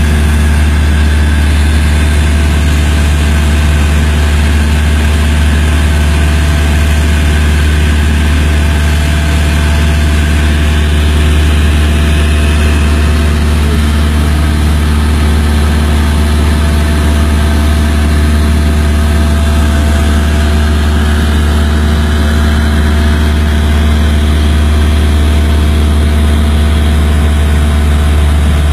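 Loud, unchanging engine drone: a strong low hum with steady tones above it.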